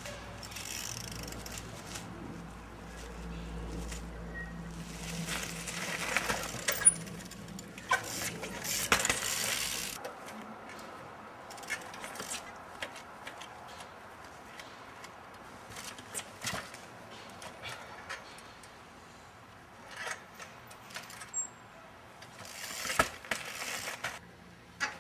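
Trials bicycle hopping and landing: scattered sharp knocks and metallic clinks as the tyres, rims and chain hit the ground, with short bursts of scuffing noise.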